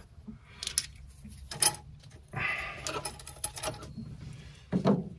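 Small metal clicks and clinks as the fuel injector's hold-down bracket and nearby parts are handled by hand on the cylinder head, with a short scrape about halfway through and a duller knock near the end.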